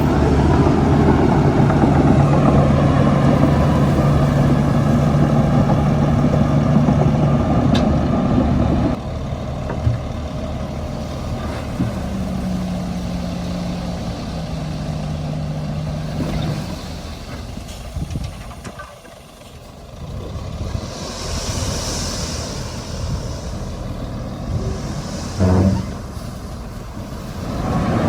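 Heavy diesel machinery engines running: loud and steady for the first nine seconds, then dropping to a quieter, lower running sound. About two-thirds of the way through there is a hiss of air, and near the end a brief, short pitched blast.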